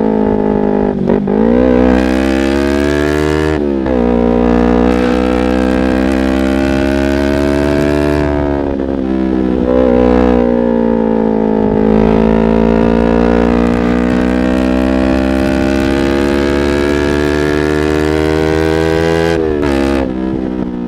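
Yamaha R25 parallel-twin engine breathing through a Proliner aftermarket exhaust, running at a steady pitch. The note drops briefly and climbs back a few times, about a second in, near four seconds, around eight to ten seconds and near the end.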